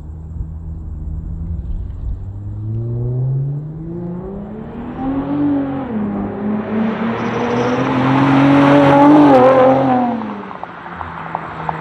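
2018 Infiniti Q60's twin-turbo V6 exhaust, fitted with HKS resonated lower downpipes, a custom 3-inch double X-pipe and Flowmaster FlowFX mufflers, accelerating hard past. The exhaust note climbs in pitch, dips once briefly about halfway through as it shifts up, and climbs again to its loudest. It then drops away sharply as the car goes by.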